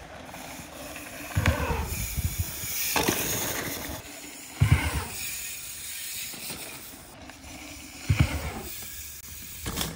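Mountain bike tyres rolling over dirt and a wooden kicker ramp, a rough rolling noise that builds and stops suddenly about four seconds in, with dull thuds about a second and a half in, near the middle and near the end.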